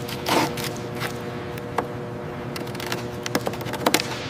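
Workshop ambience: scattered sharp clicks and clanks over a steady hum, with a louder cluster of clicks near the end.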